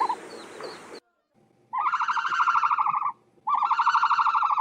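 Ostrich calling: two buzzy, rapidly pulsed calls of about a second and a half each, a short gap apart, after the tail of an earlier call at the very start.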